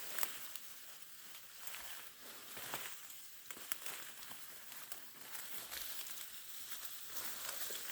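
Footsteps crunching and rustling through dry leaf litter and brush, with irregular crackles of twigs and leaves over a steady faint hiss.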